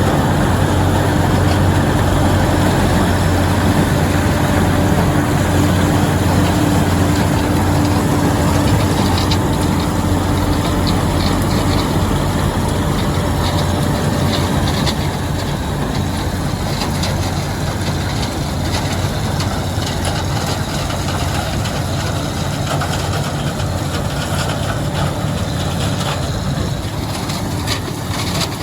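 White 7300 combine running while harvesting corn: a steady, loud engine drone that gradually eases off, with a humming tone that drops out about halfway through.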